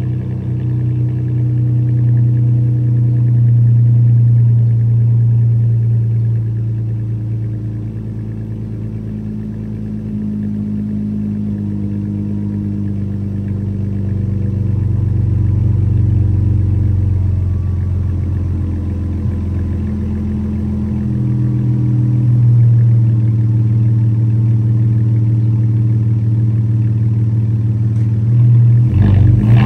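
Chrysler sedan's engine idling during warm-up after a cold start, a steady low drone that swells and eases every few seconds. Near the end there is a brief, sharper, louder burst.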